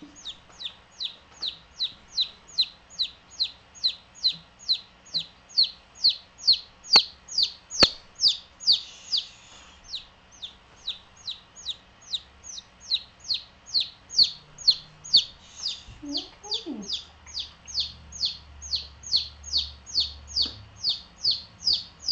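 A baby chick peeping loudly and without a break, about two short falling peeps a second: the insistent calling of an agitated chick.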